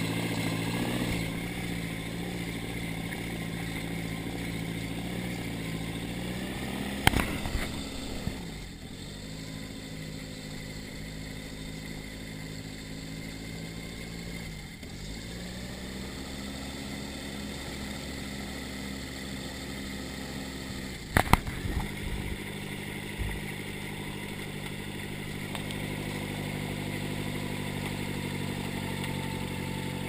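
Motorised hang-glider trike's engine and pusher propeller running steadily at low revs, the pitch dipping briefly and recovering twice. Sharp knocks come about seven seconds in and again about twenty-one seconds in.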